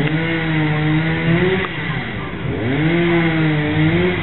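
Small engine revved up and held at high speed, then let drop back, twice.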